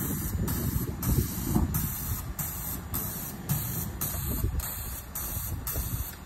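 Electric commuter train drawing slowly into the station: a low, uneven rumble with hiss over it.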